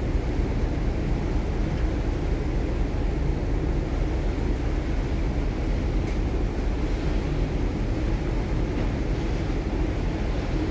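Steady low rumble of the ferry MV Blue Puttees under way, mixed with wind buffeting the microphone.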